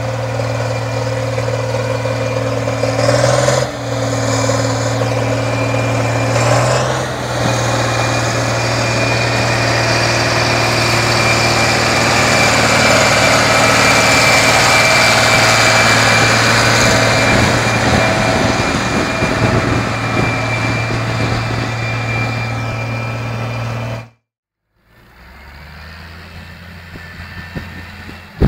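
Landini 12500 tractor's Perkins six-cylinder diesel engine running steadily under load while pulling a two-furrow reversible plough deep through wet soil; its note dips briefly twice in the first seven seconds. After a sudden cut near the end the same engine is heard farther off and quieter.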